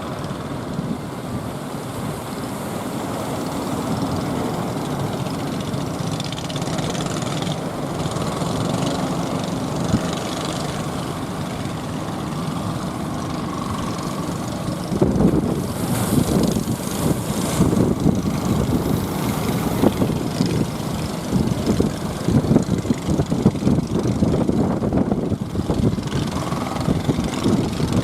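Sekoci fishing boat's engine running steadily, then louder and rougher from about halfway through.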